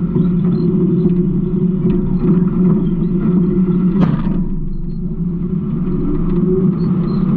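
Garbage truck's diesel engine running with a steady low rumble, with one brief sharp noise about four seconds in.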